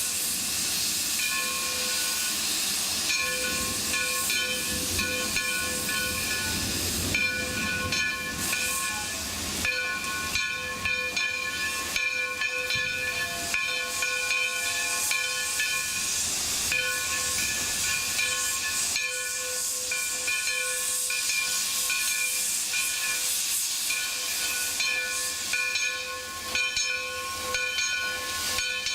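Alco 2-8-0 steam locomotive venting steam: a continuous loud hiss carrying several steady whistling tones that break off briefly now and then.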